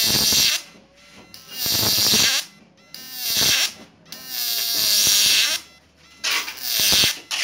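High-voltage arcing from a 12-transistor analog electric-fishing inverter, its output lead struck against a metal plate: about five bursts of hissing, crackling sparks, each half a second to a second long, with a buzzing whine that slides down in pitch as the arc draws.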